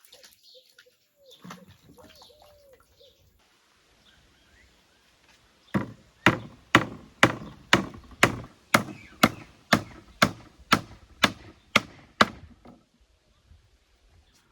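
Knife chopping on a wooden cutting board in a steady rhythm of about two strokes a second, some fourteen strokes starting about halfway through. Faint bird calls in the first few seconds.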